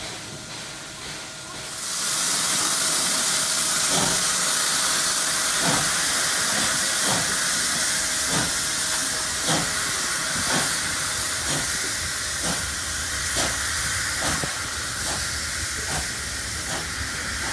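Steam locomotive 5917, a NSW D59-class 2-8-2, starting a train away. A loud steam hiss sets in about two seconds in and holds, with exhaust chuffs cutting through about once a second and gradually quickening.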